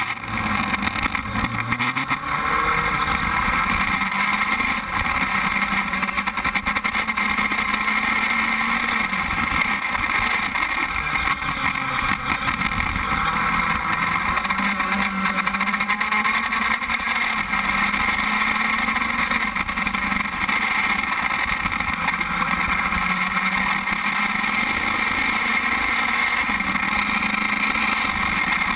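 Formula race car's engine running while the car stands still, idling steadily with its speed drifting slowly up and down a little.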